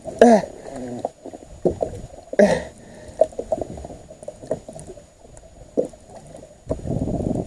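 A man grunting twice with effort, two short falling groans about two seconds apart, while he cranks a baitcasting reel against a heavy blue catfish, with small clicks along the way. Near the end a steady low rumble sets in.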